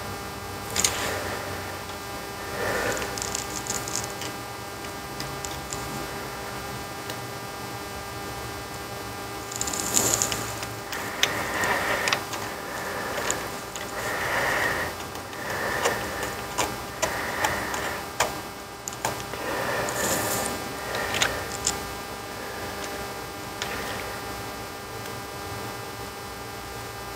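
Scattered clicks, taps and short scrapes of small screws and tools being handled on a workbench, over a steady electrical hum.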